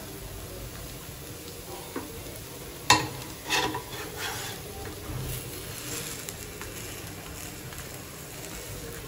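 Dosa frying with a faint steady sizzle on a nonstick tawa, while a spatula scrapes and taps on the pan. One sharp knock about three seconds in is the loudest sound, followed by a few short scraping strokes.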